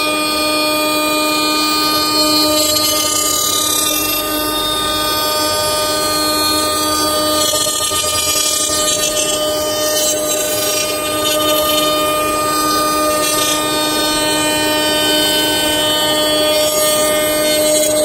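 CNC router spindle running at steady speed with a constant whine, its cutter carving a wooden bust turning on the rotary axis, with the rough hiss of the wood being cut.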